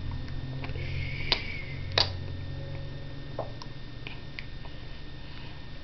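A few light clicks and taps, two sharper ones about one and two seconds in, over a steady low hum.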